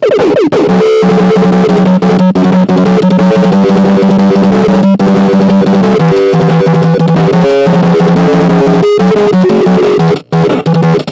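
Music with a drum kit and guitar, loud and steady, with a few brief breaks.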